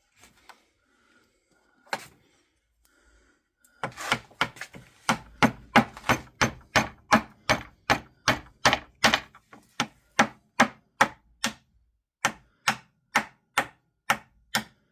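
Heavy old mallet striking thin maple strips, driving them down into a slot cut in a walnut board. One blow, then a long run of steady, rhythmic blows about two to three a second, with a brief pause near the end.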